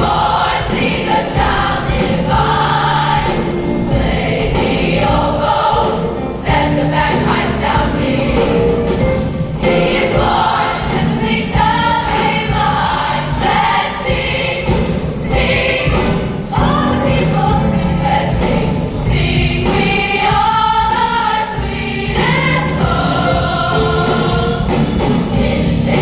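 A large choir singing with orchestral accompaniment.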